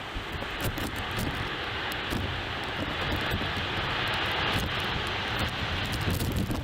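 Jet airliner's engines rushing as it passes close on landing, the noise swelling to a peak midway and easing near the end, with gusts of wind buffeting the microphone.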